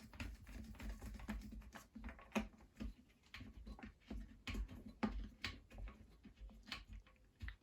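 Faint, irregular clicks and light knocks of plastic bidet fittings being handled as a connection is hand-tightened.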